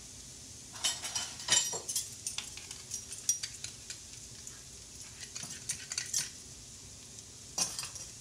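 A metal spoon clicking and scraping against a nonstick skillet as mayonnaise is spooned into sautéing vegetables. The clicks come in scattered clusters over a faint sizzle from the pan.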